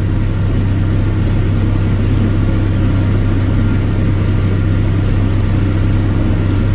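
Tractor engine running at a steady speed while pulling a hay baler, a constant low drone.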